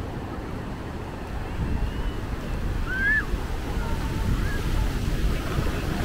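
Steady low rumble of wind buffeting the microphone outdoors, with a brief high chirp about three seconds in.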